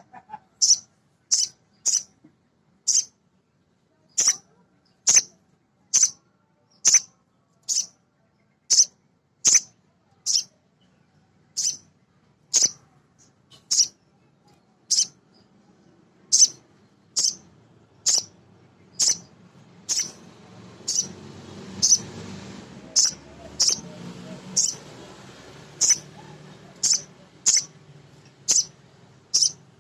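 Male little spiderhunter (sogon) giving a long series of short, sharp, high chip calls, about one a second. Faint low background noise comes in about two-thirds of the way through.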